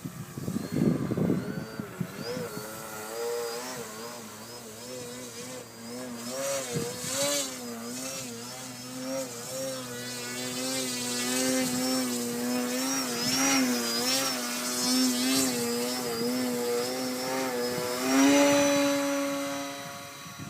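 Brushless electric motor and propeller of a 3D aerobatic RC model airplane, its whine wavering up and down in pitch as the throttle is worked to hold a hover. Near the end it jumps higher and louder on a burst of throttle, then fades.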